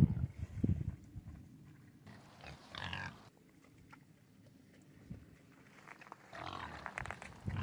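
Domestic pigs grunting: deep grunts at the start, a higher squealing call about three seconds in, and more grunts and calls near the end.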